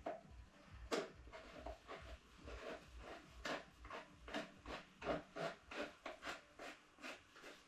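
A hand tool working on a Husqvarna 40 chainsaw, faint: a sharp click about a second in, then from about halfway a run of short, even clicks, about three a second.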